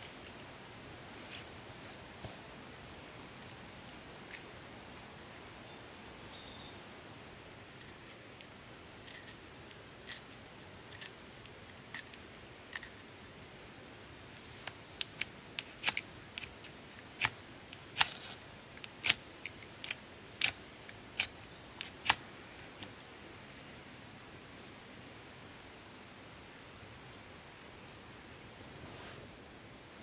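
Ferrocerium fire-starter rod struck repeatedly with a steel striker, a run of about a dozen sharp scrapes, loudest about halfway through. Under it runs a steady high insect drone.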